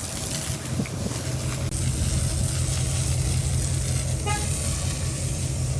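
An engine running steadily with a low hum, with a brief short tone about four seconds in.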